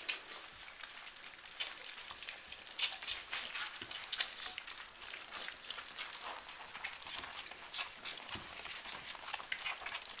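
A litter of puppies eating dry food together from a metal bowl: a continuous mass of small crunching and clicking sounds.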